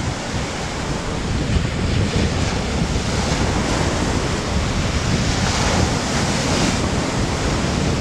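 Surf breaking and washing up a pebble beach, with strong wind buffeting the microphone in a steady low rumble.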